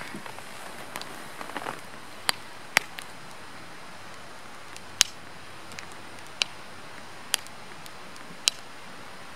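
Firewood burning in a campfire, crackling: sharp single pops every second or two over a steady soft hiss.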